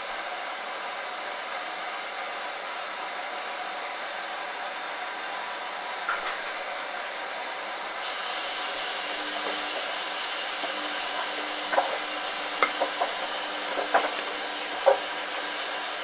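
Hoover front-loading washing machine on its rinse: a steady hiss of water running into the drum, a little louder about halfway through. A low hum and a series of sharp knocks and clicks follow as the drum starts to turn the wet laundry.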